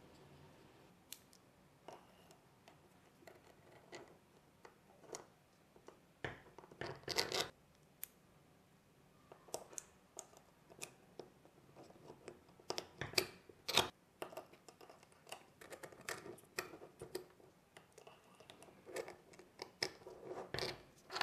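Light clicks, taps and short scrapes of small metal parts handled by hand, as metal cylinder sleeves are fitted into the bores of a miniature V8 engine block.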